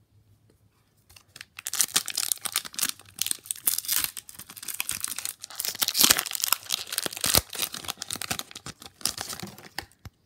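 Foil wrapper of a Pokémon trading card booster pack being torn open and crinkled. It is a dense crackling full of sharp ticks that starts about a second and a half in and lasts about eight seconds.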